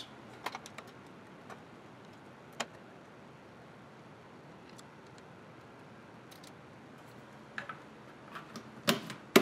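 Scattered light clicks and taps from small parts being handled and fitted onto a 3D printer's frame. There are a few in the first second, one on its own a little later, and a cluster near the end, which holds the sharpest knocks.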